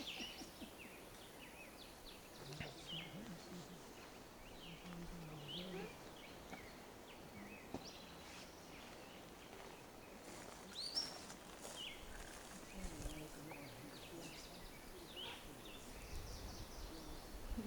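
Faint bird chirps, short and scattered, over a quiet steady background hiss.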